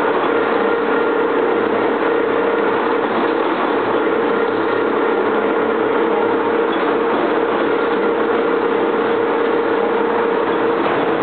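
Double-column vertical turning lathe (C52 series) running under cut, its table turning a large steel ring against the tool: a loud, steady mechanical noise with a constant hum.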